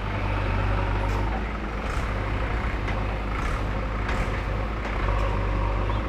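JCB backhoe loader's diesel engine running steadily under load as the backhoe arm digs, with several short knocks and clatters from the arm and bucket working the soil.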